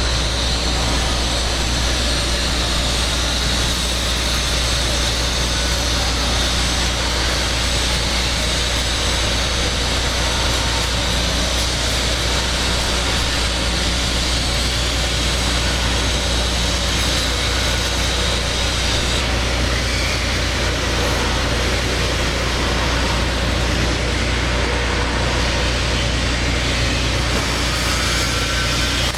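TIG welding the cap pass on a steel pipe joint: a steady drone of low hum and high hiss from the welding arc and welding machine, unbroken and even in level.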